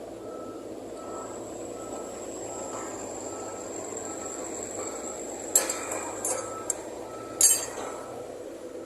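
Excavator running steadily with a faint repeating beep and a thin high whine, then several sharp clattering knocks of stone, the loudest about two-thirds of the way through, as limestone is dug and dropped.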